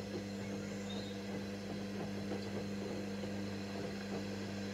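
A steady low hum holding an even pitch, with a faint crackly haze over it.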